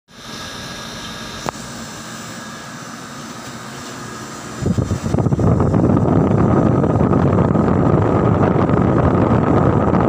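Carrier window-type room air conditioner running: a steady hum with a single click about one and a half seconds in. A little before halfway, a much louder rushing noise of fan air takes over and holds steady.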